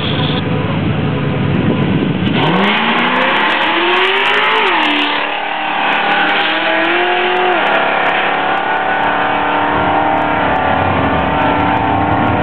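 Two Ford Mustang GT 4.6-litre two-valve V8s launching hard down a drag strip about two seconds in. The engine note climbs steeply and drops twice, at about four and a half and seven and a half seconds, as the cars shift up through the gears, then carries on at high revs as they pull away down the track.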